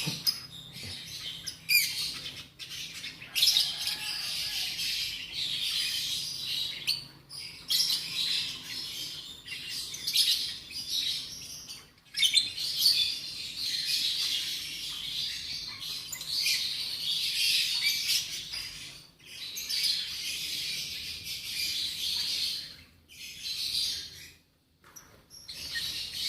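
Lovebirds chattering: a dense run of high, shrill chirps that keeps going in long stretches with a few short breaks.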